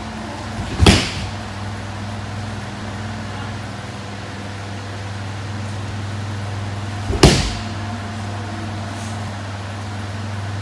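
Two judo throws landing on tatami mats: a thrown judoka hits the mat with a sharp thud about a second in and again about seven seconds in, over a steady low hum.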